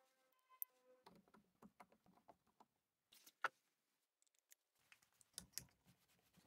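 Near silence broken by faint clicks and taps of small parts being handled during reassembly of a Makita 9005B angle grinder, with one sharper click about three and a half seconds in. A faint ringing tone fades out in the first second.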